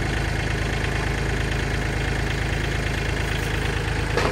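Kubota L4018's three-cylinder direct-injection diesel engine idling steadily. A single sharp metallic knock comes near the end.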